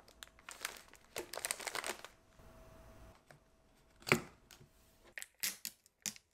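Plastic snack packaging crinkling as it is handled, then a sharp snap about four seconds in as a plastic tub lid is pried off. A paper seal is then peeled back from the tub in a few short tearing rips.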